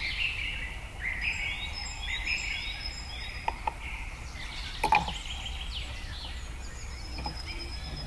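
Birds chirping repeatedly in the background over a steady low rumble, with a few sharp clicks, the loudest about five seconds in.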